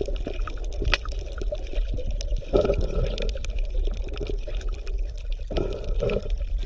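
Underwater ambience: water bubbling and gurgling, with many scattered faint clicks over a steady low hum.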